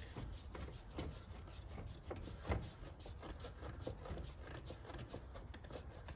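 Faint scraping and small clicks of a screwdriver turning the worm screw of a Jubilee clip (worm-drive hose clamp) on the airbox hose, with a sharper click about two and a half seconds in.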